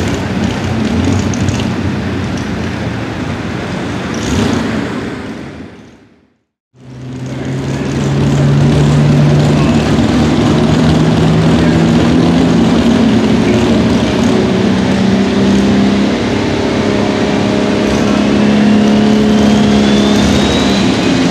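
Turbocharged diesel engine of an International pulling tractor running at the start line. The sound fades out briefly about six seconds in, then comes back, and a turbo whine rises in pitch over the last few seconds as the engine is brought up.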